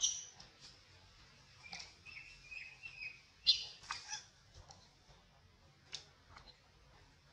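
Scattered short, high-pitched chirps and squeaks: a quick run of short calls about two seconds in and the loudest squeak about three and a half seconds in, over faint forest background.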